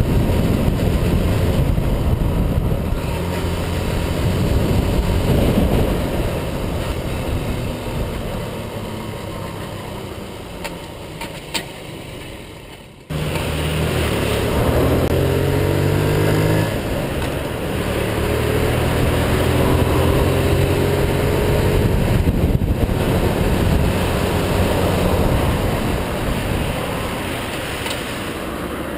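Honda Monkey 6V's small four-stroke single-cylinder engine running, growing quieter over the first dozen seconds. After a sudden break about 13 seconds in, it runs louder, with the engine speed rising and falling several times as it is revved.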